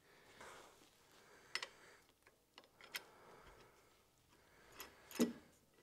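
Hand tools clicking against the AC compressor's clutch and pulley. There are a few separate light clicks, the loudest near the end, with faint handling noise between them.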